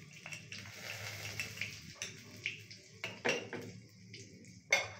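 Cumin seeds and asafoetida (hing) sizzling in hot oil in a kadai as a faint hiss, with sharp clinks of crockery and utensils about three seconds in and again near the end.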